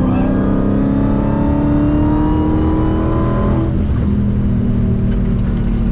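Dodge Hellcat's supercharged V8 accelerating hard, its note climbing for about three and a half seconds with a faint high whine rising with it, then dropping back to a steady lower drone.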